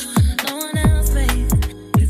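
Background hip hop–style music with a vocal line over a beat of deep bass hits that slide down in pitch, with quick hi-hat ticks.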